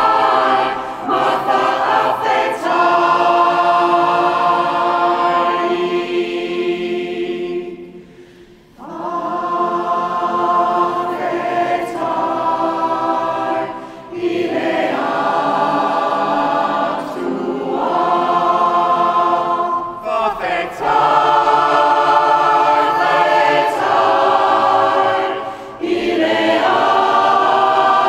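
Mixed-voice community choir singing unaccompanied in a stone cathedral, holding chords phrase by phrase, with a short pause for breath about eight seconds in.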